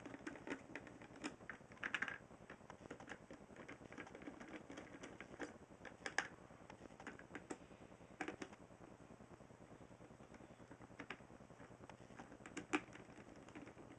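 Faint, irregular small clicks and taps of the Corsair H50's metal mounting studs and screws being hand-threaded into the bracket around a motherboard's CPU socket.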